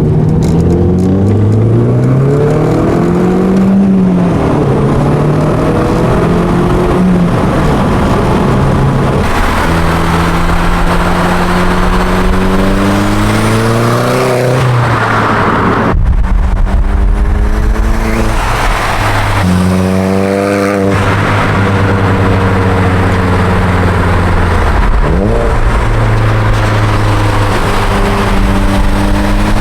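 Audi S3's turbocharged four-cylinder running through an aftermarket exhaust, accelerating through the gears: the engine note climbs in pitch and drops back at each upshift, several times over.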